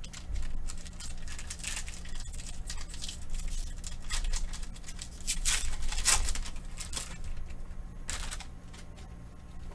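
Foil wrapper of a Panini Prizm trading-card pack crinkling and tearing as it is ripped open and the cards are slid out. The crackling comes in irregular bursts, loudest about halfway through and again near the end.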